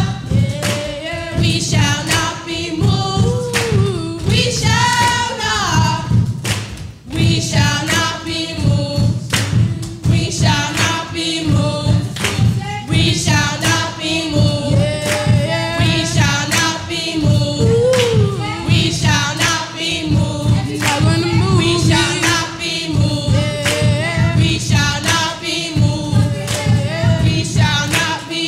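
A children's choir sings a gospel song over a steady drum beat, with a short break about seven seconds in.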